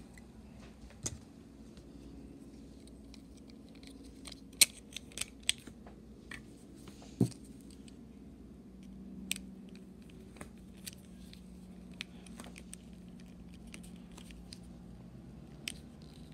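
Scattered sharp clicks and taps of hard plastic as the body and battery of a Tomy Emily battery-powered toy engine are handled and fitted together, the loudest click about four and a half seconds in.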